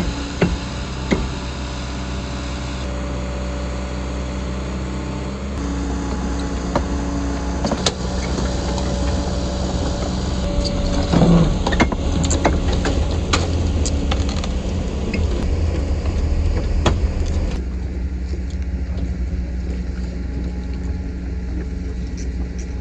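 Kobelco SK120 excavator's diesel engine running steadily, with scattered sharp knocks and clanks, most of them bunched together about ten to fourteen seconds in.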